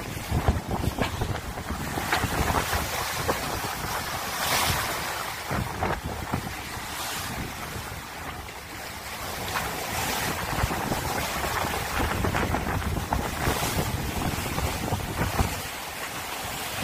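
Sea water rushing and splashing along the hull of a sailing yacht under sail, the bow wave surging louder every few seconds, with heavy wind buffeting on the microphone.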